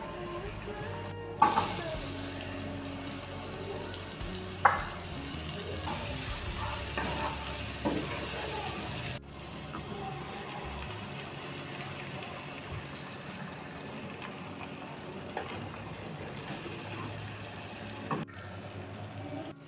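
Chicken sausages sizzling in hot oil in a frying pan, with two sharp taps in the first few seconds; the sizzle cuts off abruptly about nine seconds in, giving way to quieter cooking of egg poured over sliced onions. Background music plays underneath.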